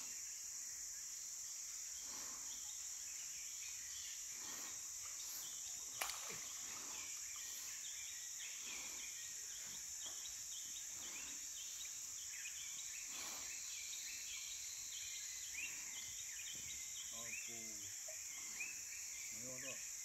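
Steady, high-pitched insect drone, with rapid repeated chirping calls in the middle stretch and one sharp click about six seconds in.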